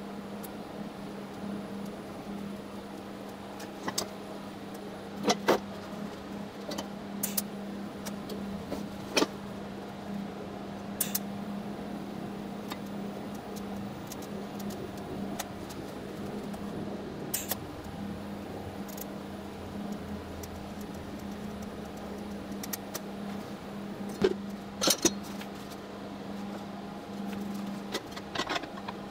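TIG welding on an oil diffusion pump's housing: a steady low hum from the welding setup under the arc, with scattered sharp clicks and knocks, the loudest about five seconds in and near the end.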